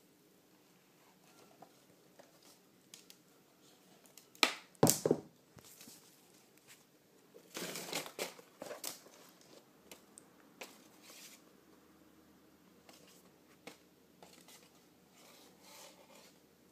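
Shoebox packaging being handled: paper crinkling and rustling, with a few sharp knocks about four and a half seconds in and a longer stretch of crinkling around eight seconds.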